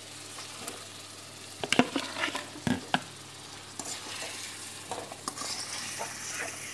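Fried potatoes dropped into a hot aluminium kadai of spice paste (masala) frying in oil. A few sharp knocks of a metal slotted spoon against the pan come a couple of seconds in, over a steady sizzle that grows a little stronger near the end.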